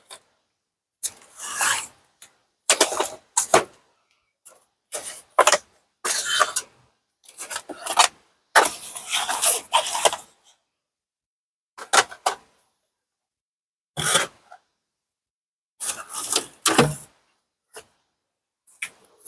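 Intermittent scraping and rubbing of objects being handled, in short bursts of up to about a second with silences between.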